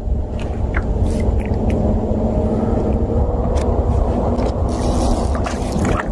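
A steady low rumble with a faint hum running under it, and a few short knocks and splashes, most of them near the end, as a hooked smallmouth bass is played on a fly rod beside a kayak.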